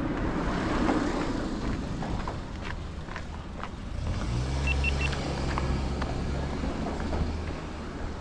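A small kei truck's engine running close by, a steady low hum that starts about four seconds in, with three short high beeps about a second later.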